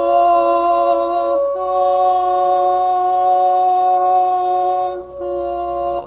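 A man singing long, held wordless tones, stepping to a new pitch twice, over a steady ringing drone that fits a crystal singing bowl.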